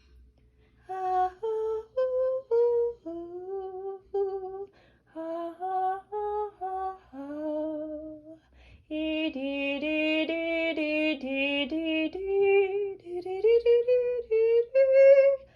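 A single voice singing a wordless melody of short held notes that step up and down in pitch, with a longer unbroken phrase in the middle.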